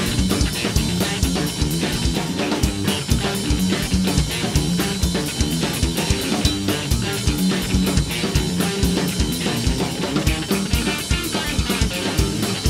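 Rock band playing live without vocals: electric guitar, electric bass and drum kit in an instrumental passage, with a steady drum beat and ringing cymbals.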